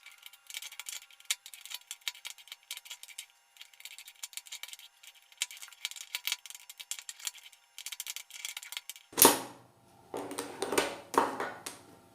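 Quick, irregular clicking and clacking of a plastic Cubelelo Drift speed cube's layers being pushed round with metal spoons. A few louder, fuller knocks come in the last few seconds.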